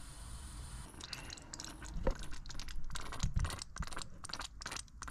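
Coolant and trapped air sputtering out of an opened bleed screw on the LT1 V8's cooling system as it is filled: air being purged from the coolant passages. An irregular crackle of many short spitting bursts starts about a second in.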